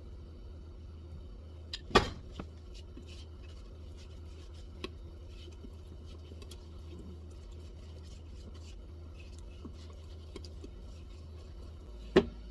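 A few light kitchen handling knocks and clinks, one sharper knock about two seconds in and two more near the end, over a steady low hum.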